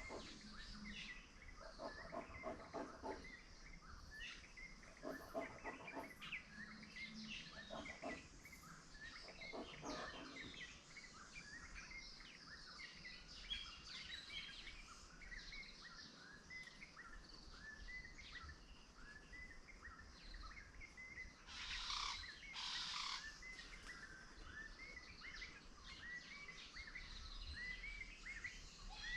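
Many small birds chirping with short, rapid calls throughout. In the first ten seconds another animal gives four short runs of lower, pulsed calls. About 22 s in comes a brief harsh, rasping burst.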